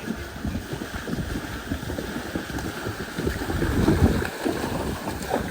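Wind buffeting the microphone over the rush of flowing floodwater, swelling about four seconds in.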